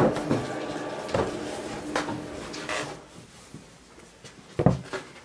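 Soft thumps and wooden knocks of bread dough being handled and set down on a floured wooden table, several in the first three seconds and a sharper knock about four and a half seconds in.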